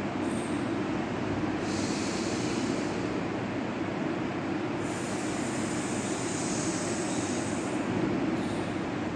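Steady low background rumble, with two hissing in-breaths drawn through the mouth: a short one about two seconds in and a longer one from about five to eight seconds in, as in sheetali pranayama breathing through the rolled tongue.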